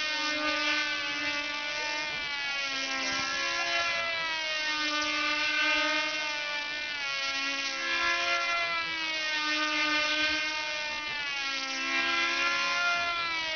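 Small model airplane engines buzzing at high revs as combat planes fly, two or more engines at once, their pitch swinging up and down every couple of seconds as the planes circle and pass.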